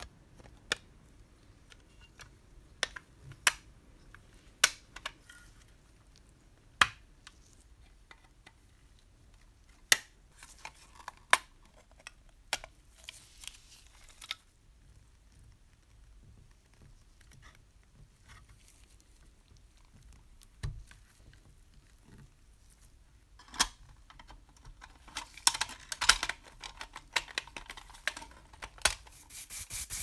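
Scattered sharp clicks and taps of small painted tin toy parts being handled and worked by hand, with brief scraping about halfway through and a quick run of clicks and scraping near the end.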